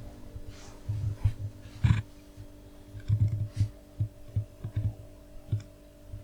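Refrigerator compressor running with a steady hum, broken by irregular low knocks and thuds. It is a replacement compressor in an Atlant fridge that is not cooling.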